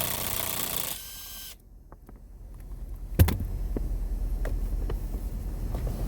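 A single sharp click about three seconds in, followed by a few faint ticks over a low steady hum.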